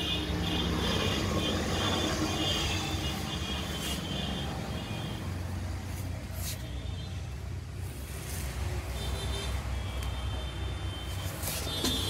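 Steady low rumble of background road traffic, with faint high-pitched tones coming and going.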